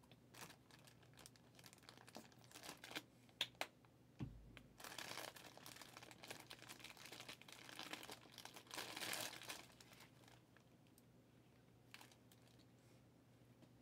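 Faint crinkling and rustling with scattered light clicks, most of it between about two and ten seconds in, and a soft low bump about four seconds in; near silence near the end.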